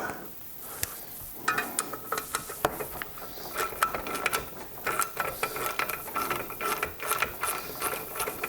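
Socket ratchet clicking in quick, repeated strokes, backing out the muffler bolts on a Briggs & Stratton push-mower engine to open up the exhaust port.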